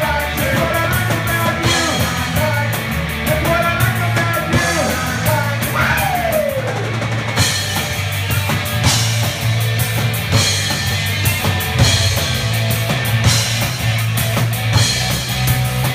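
Rock band playing live: drum kit, electric guitar and bass guitar driving a steady beat, with a lead singer in the first few seconds.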